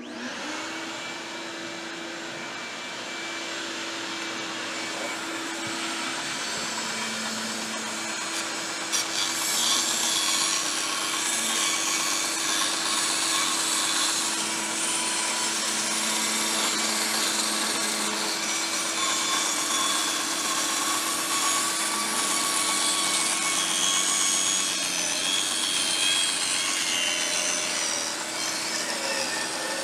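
Band saw and shop vac running, with the saw blade cutting a circle out of plywood. The motors start the hum right away, and the cut adds a louder, steady rasp from about nine seconds in.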